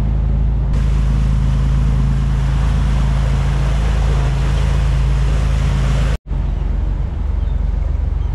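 Sportfishing boat's engine droning steadily under way, with wind and rushing water over it. The sound drops out for an instant about six seconds in, then the drone carries on.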